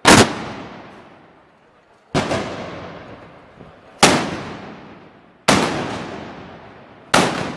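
Five loud black-powder gunshots, the arcabuz or blunderbuss salvos of a Moros y Cristianos gunpowder parade, one every one and a half to two seconds. Each echoes away for more than a second.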